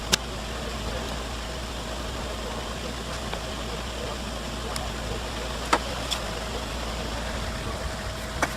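Steady machine hum with a faint constant tone, broken by a few sharp metallic clicks, about five in all.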